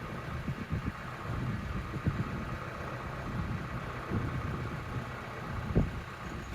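A vehicle engine running steadily, with irregular low thumps of wind buffeting the microphone.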